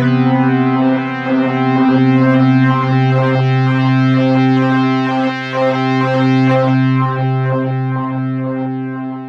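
Waldorf Microwave wavetable synthesizer playing user-made wavetables: a held low note under a run of shorter, shifting notes above, fading out near the end.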